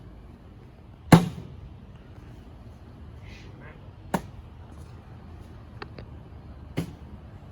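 Cornhole bean bags landing on the board: three sudden thuds, the loudest about a second in, another about four seconds in and a softer one near the end.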